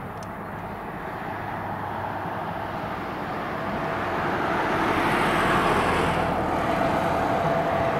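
Embraer 195 airliner's twin CF34-10E turbofan engines on final approach, growing steadily louder as the jet nears. A high hiss builds about halfway through, and a faint steady whine comes in.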